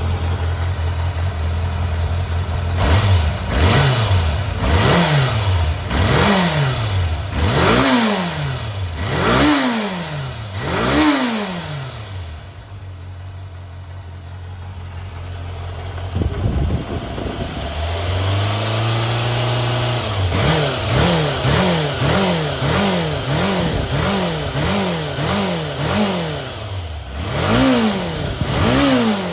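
Kawasaki Zephyr 400 (ZR400C) air-cooled inline-four engine running. It idles, then is revved again and again, each blip rising and falling. Around the middle it drops to a quiet low stretch, then picks up into a run of quick short blips and two bigger revs near the end. The seller presents the engine as a working unit with no abnormal noise.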